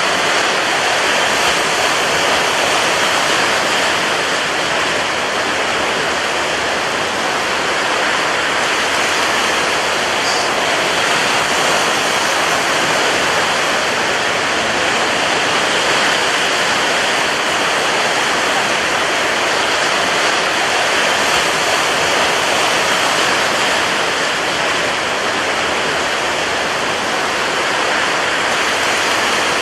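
Rough sea and strong wind making a steady, dense roar, with no separate wave crashes standing out.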